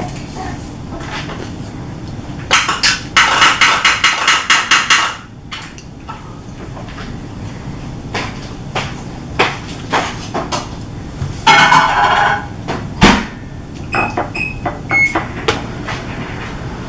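Plastic spatula knocking and scraping in a plastic mixing bowl of cupcake batter. A fast run of sharp knocks lasts a couple of seconds, then come scattered taps, a short scraping stretch and one harder knock.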